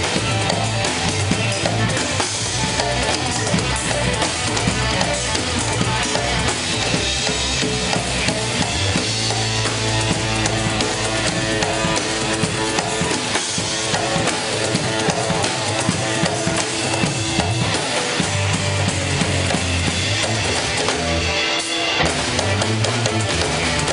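Live band playing an instrumental piece: drum kit, electric bass, electric guitar and hand drums (congas and djembe) together, with a strong, steady bass line.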